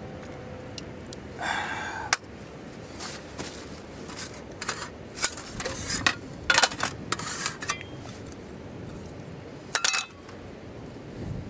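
Metal camp cookware and utensils being handled: a series of sharp clinks and scrapes spread over several seconds, with a longer rattle about a second and a half in.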